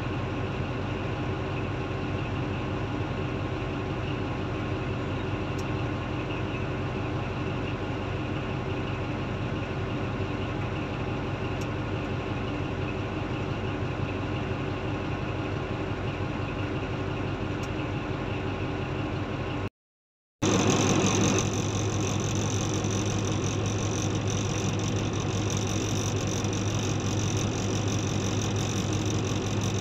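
Diesel engines of a Komatsu D155A bulldozer and a large hydraulic mining excavator running steadily. The sound cuts out briefly about two-thirds of the way through, then comes back louder.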